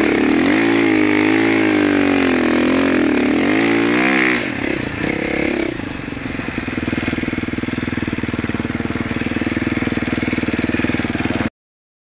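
Gas Gas MC450F four-stroke single-cylinder dirt bike engine revving up and down under throttle for about four seconds, then settling to a steady, lower note. It cuts off abruptly near the end.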